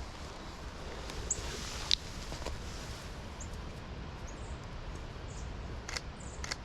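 Forest ambience: a steady low rumble of wind with a soft even hiss, and a few short, faint, high bird chirps scattered through. A sharp click about two seconds in is the loudest sound, with two lighter clicks near the end.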